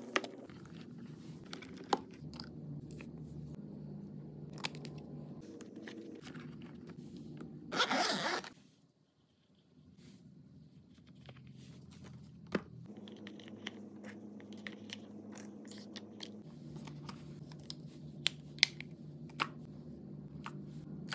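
Cosmetic items and zippered toiletry pouches being handled and packed: scattered light clicks and taps of small containers, and a louder zipper pull about eight seconds in, over a faint low hum.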